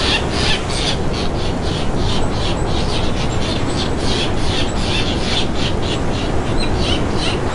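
Birds calling in a quick series of short chirps, about three or four a second, over a steady low rushing background noise.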